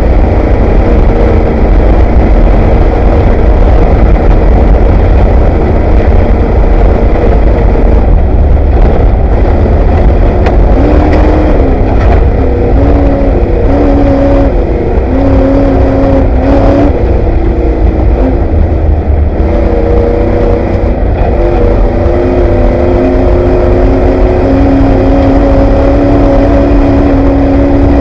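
Ford Bronco off-road race truck's engine running hard, heard from inside the cab. Its pitch steps up and down repeatedly as it accelerates and lets off, over a constant heavy low rumble.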